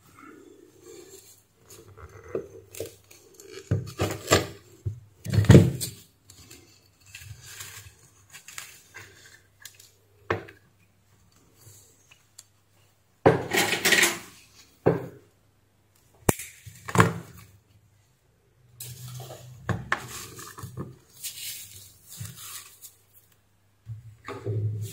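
Metal hand tools and the opened steam iron being handled and set down on a workbench: irregular clinks, knocks and scrapes, with a few louder clatters.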